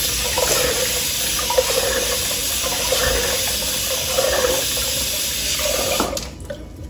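Water running and splashing into a stainless steel sink as lentils are rinsed in a pressure cooker. The steady rush stops abruptly about six seconds in.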